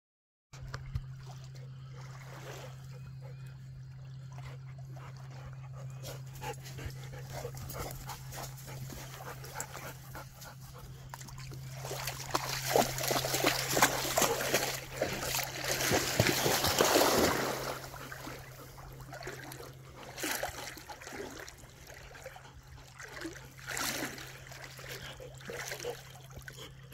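A dog whimpering amid splashing water, the splashing loudest about halfway through.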